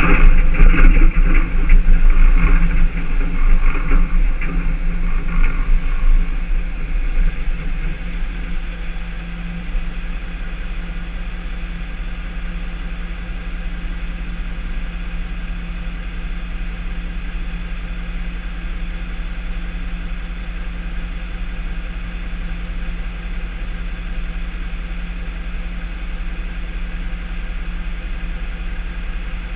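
Tow truck engine and road noise as the truck slows for the first several seconds, then a steady engine idle while it stands stopped.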